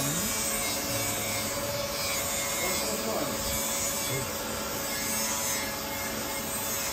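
Steady rushing noise of cooling fans in running UPS equipment, with a constant hum.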